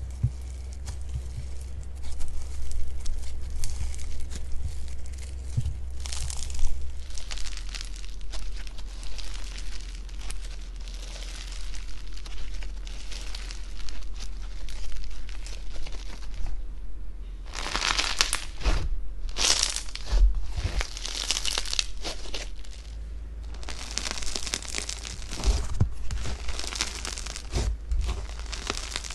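Blue crunchy slime packed with small beads being squeezed, pressed and stretched by hand, crackling and crinkling in bursts that are busiest in the second half. A low steady hum runs underneath.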